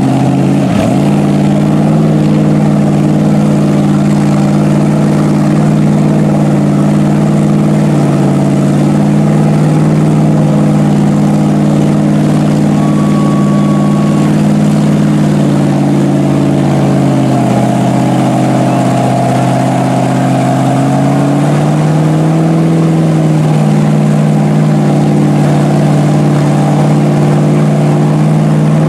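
Mud-bog truck's engine held at high revs while its big mud tires spin and fling mud in deep mud. The revs sag about two-thirds of the way through, then climb back up.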